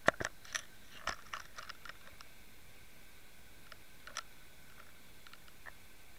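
Lead-head bucktail jig clicking and knocking on a shelly sand bottom, heard underwater: a quick run of sharp clicks in the first two seconds, then a few scattered ones, over a faint steady hum.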